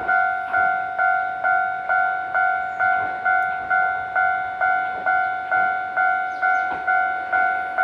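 Japanese railway level-crossing warning bell ringing over and over, about two strikes a second, each strike ringing out and fading before the next: the signal that a train is approaching or passing.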